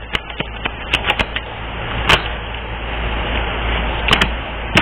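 A deck of cards being shuffled and handled: scattered sharp clicks at first, then a steady papery rustle through the second half.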